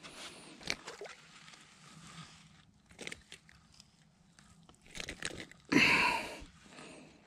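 Scattered crunching and rustling from a freshly caught bass being handled on a sandy, twiggy bank, with one louder rustling burst about six seconds in as the hooked bass thrashes on the line.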